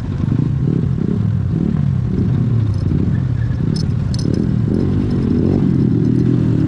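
Motorcycle engine running steadily, with a short clatter of sharp metallic clicks about four seconds in.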